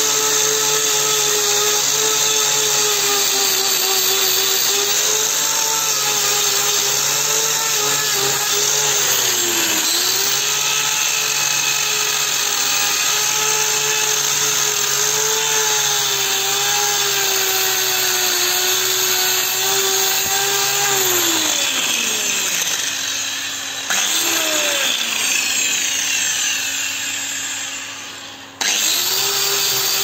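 Angle grinder running and grinding a cow's hoof, a steady whine that sags briefly in pitch about a third of the way in. In the last third it winds down twice, falling in pitch and fading, and is switched back on each time, the second time near the end.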